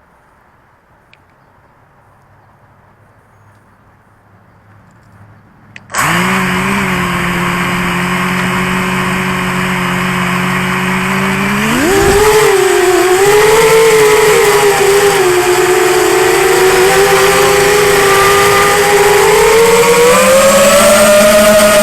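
Quadcopter's four 2204 2300Kv brushless motors and propellers: after about six seconds of quiet they start suddenly with a steady whine. About twelve seconds in the pitch jumps up as throttle is added, then wavers up and down with throttle, rising near the end.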